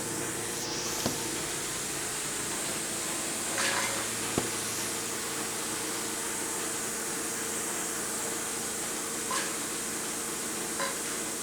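Steady mechanical hiss and hum of running machinery, with a few light clicks and one sharp knock about four seconds in.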